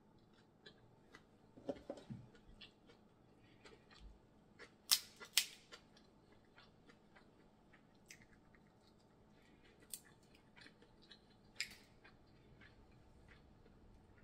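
Close-miked eating of snow crab legs: scattered clicks and cracks of the shells, with chewing, sucking and lip smacks. Two sharp clicks come close together about five seconds in, and a short sucking sound slides down in pitch near two seconds.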